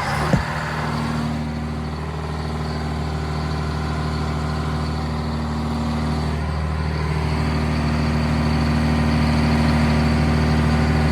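1971 Insley excavator's diesel engine running steadily, with a couple of sharp clicks right at the start and a slight rise in loudness over the last few seconds.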